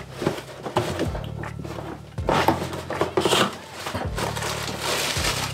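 Background music, over the handling of a cardboard shoe box as its lid is opened, with short rustles about two and three seconds in.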